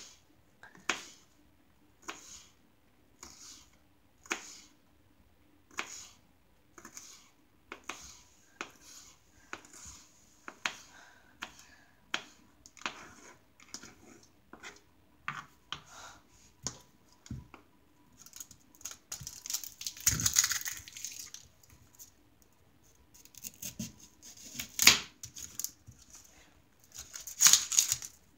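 Knife chopping an onion on a cutting board, slow steady cuts about once a second. A longer rustle comes about two-thirds of the way through, and a few louder knocks near the end.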